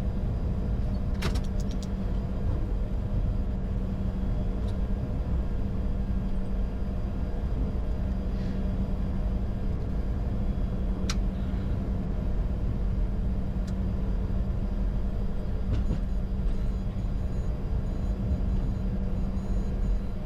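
Steady cockpit noise of a Bombardier Challenger 605 taxiing after landing: its two GE CF34-3B turbofans at idle with the APU running, heard as a constant hum and rumble. A few light clicks sound now and then.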